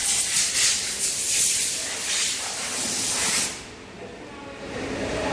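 A loud hiss of air or spray that swells and eases unevenly, then cuts off suddenly about three and a half seconds in, leaving a low hum.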